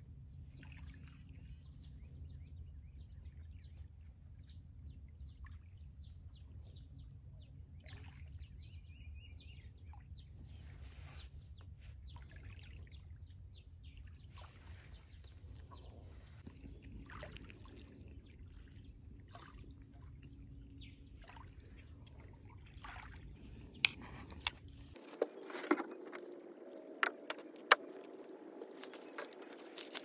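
Outdoor lakeside ambience: a steady low rumble with scattered faint bird chirps. About 25 seconds in the rumble drops out, and sharp clicks and clatter follow as a folding camp table is set up.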